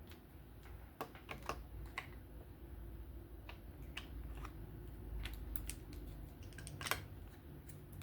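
Small, irregular clicks and taps of folding-knife parts and small tools being handled and set down on a work surface during pivot and bearing reassembly, the sharpest click near the end.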